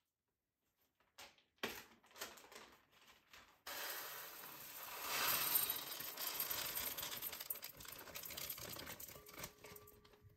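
A plastic zip bag crinkles and clicks as it is handled and opened. Then, nearly four seconds in, dry uncooked rice starts pouring from it into a rice cooker's inner pot: a steady rushing patter of grains that swells a second or two later and keeps going almost to the end.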